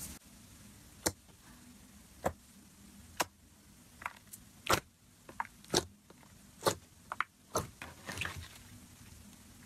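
Fingers pressing and poking into glossy slime, giving short, sharp wet clicks and pops about a dozen times at irregular intervals, with a brief run of crackles near the end as air pockets in the slime burst.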